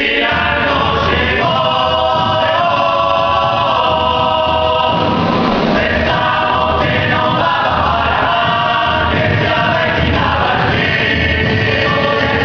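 A group of voices singing together in chorus, holding long notes over music with a regular low beat.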